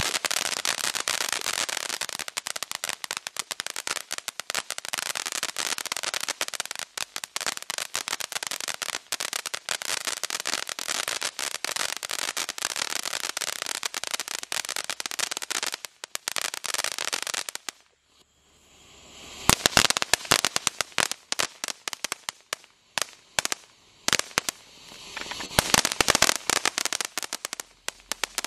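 Legend Neon Fountain ground fountain firework spraying sparks with a dense, continuous crackle for about eighteen seconds. It falls almost silent for a moment, then crackles again in uneven bursts.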